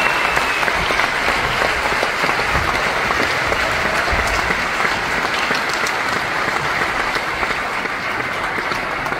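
A large theatre audience applauding steadily, a dense continuous clapping that eases off slightly toward the end.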